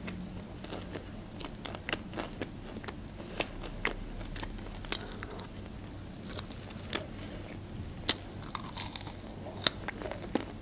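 Close-miked chewing of a McDonald's chicken nugget: mouth sounds with many small, irregular crunchy clicks.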